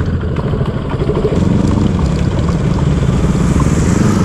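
Motorcycle engine running while riding, getting louder about a second and a half in.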